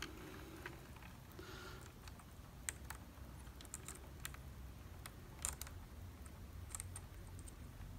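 Faint, scattered light clicks and rustling of small plastic wire connectors and cables being handled and pushed together on a hoverboard's motherboard wiring, over a faint low hum.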